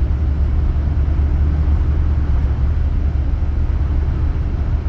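Pickup truck driving on a snowy road, a steady low rumble of engine and tyre noise heard from inside the cab.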